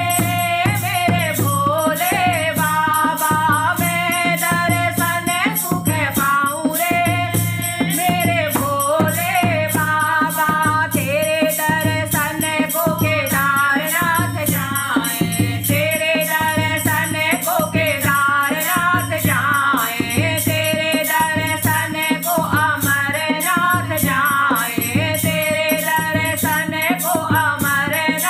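Hindi devotional bhajan song to Lord Shiva: a voice sings the melody over a steady beat, with a shaker-like rattle ticking several times a second and a low drum pulse about once a second.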